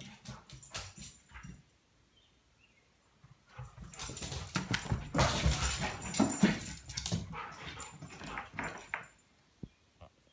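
Excited pet dogs, a German Shorthaired Pointer and a Bichon Frise, whimpering and moving about, with short scuffs and clicks near the start and a louder stretch of scuffling and rustling from a few seconds in until near the end.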